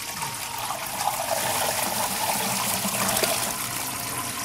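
Water running and splashing into a kitchen sink as gnocchi are drained through a colander, a steady hiss that swells slightly in the middle.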